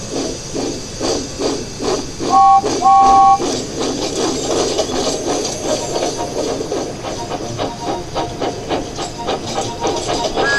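Steam locomotive sound effects: steady rhythmic chuffing over a hiss of steam, with two short two-note whistle toots about two and a half seconds in, the second a little longer.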